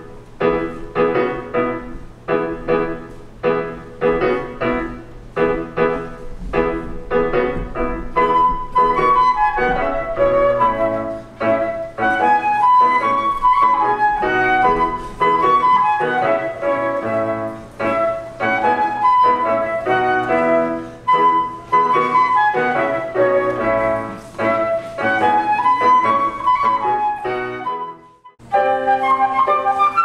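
Concert flute and Yamaha digital piano playing a duet. The piano opens with evenly repeated chords, and about eight seconds in the flute enters with a flowing melody of long notes over them. The music breaks off briefly near the end, then both come back in.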